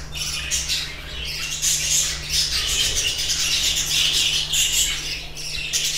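Many budgerigars chattering and squawking together, a dense, unbroken stream of short, high chirps.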